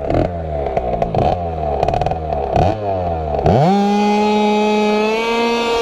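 A TPR 86cc two-stroke scooter engine with its ignition timing retarded 3° (0.16 mm BTDC) revs up and down several times. At about three and a half seconds it climbs sharply into a steady high-pitched wail at high revs, stepping up slightly near the end. The rider felt it sluggish on this timing, struggling to get on the pipe.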